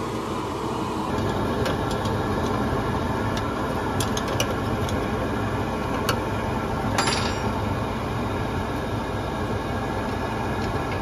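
Roberts Gordon CoRayVac tube heater running with its burner firing: a steady rushing hum. Over it come a few sharp metallic clicks and taps from a tool on the gas valve's pressure-tap fittings as a manometer hose is connected.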